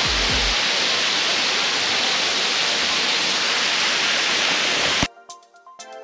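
A waterfall dropping off a rock overhang into a pool makes a steady rush of falling water. About five seconds in, the rush cuts off abruptly and music with plucked notes begins.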